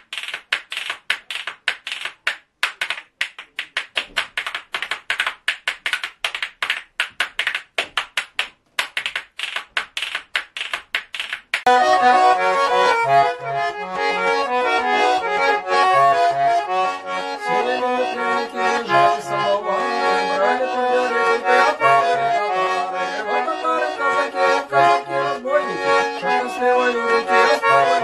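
Wooden spoons played as folk percussion: rapid dry clacking in a quick, even rhythm. About twelve seconds in it changes abruptly to a Russian button accordion (garmon) playing a folk tune, melody over recurring bass chords.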